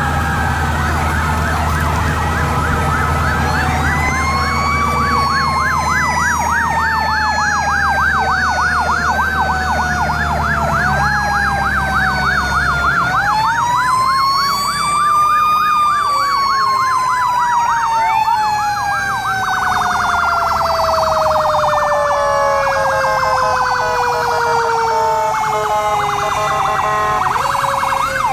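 Several emergency vehicle sirens sound at once from a passing line of fire trucks and emergency vehicles: slow rising and falling wails overlap with fast yelps. Under them a low steady rumble stops about halfway through.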